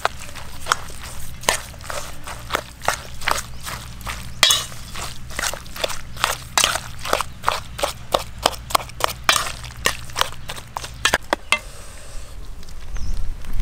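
Metal spoon stirring and tossing a wet salad in a stainless steel bowl: rapid, irregular clinks and scrapes of spoon against bowl, several a second, stopping near the end.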